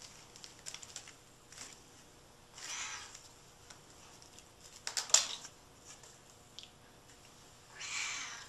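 Kittens' claws scratching and clicking on a sisal scratching post as they climb it, the sharpest cluster about five seconds in. A kitten meows faintly about three seconds in and again near the end.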